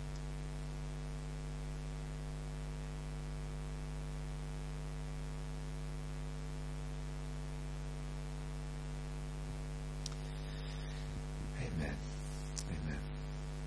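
Steady electrical mains hum, a low even buzz, carried by the sound system while nobody speaks.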